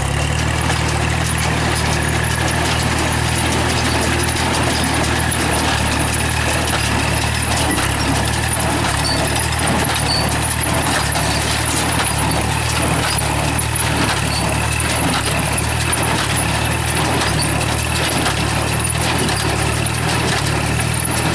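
Tractor engine running steadily while driving a straw baler, with a dense clatter of small clicks from the baler's mechanism over it.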